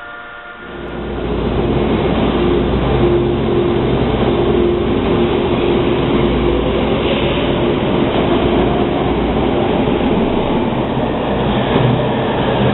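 Hawker Siddeley H-series subway train running along the track: a loud steady rumble of wheels on rail under a motor hum, with a faint whine that rises in pitch as it gathers speed. It starts about a second in.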